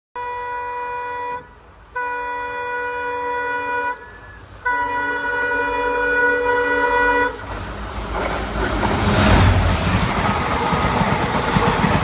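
A train horn sounds three blasts, a short one, a longer one, and a longest one that ends about seven seconds in. Then a train passes close alongside on the next track, with a loud rumble and clatter of wheels on rails.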